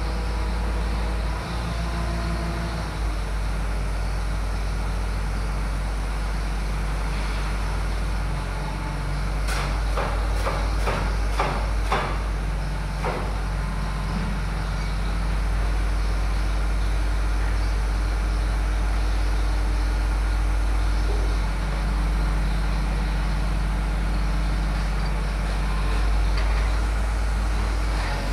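Hydraulic excavator's diesel engine running steadily, with a run of sharp knocks and clanks about ten to thirteen seconds in.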